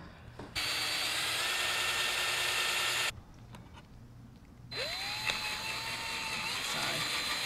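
Cordless drill running in two bursts as it bores into a small wooden brace strip. A run of about two and a half seconds is followed by a short pause. Then the motor spins up again with a rising whine and keeps running steadily.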